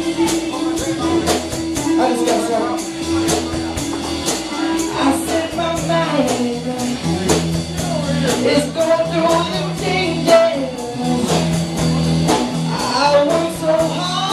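Live rock band playing blues-rock: electric guitar over a bass line and drums, with a voice singing.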